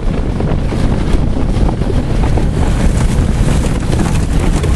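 Loud wind rushing and buffeting the microphone inside a car driving fast with its windshield blown out, over low road and engine noise and many small knocks and rattles.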